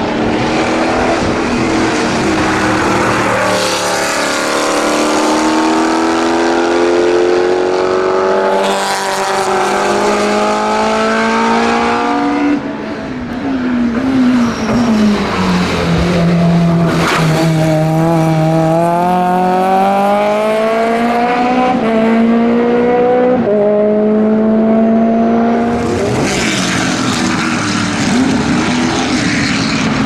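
Historic racing car engines at full throttle as the cars pass and accelerate, in several edited clips. The engine note climbs and drops back at each upshift, and in the middle one car downshifts with the pitch falling before it climbs again through the gears.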